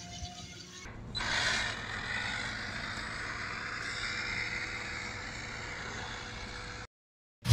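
Small electric motor of a 3D-printed Benchy-style RC boat whirring steadily as it motors slowly across the water, cutting off suddenly near the end.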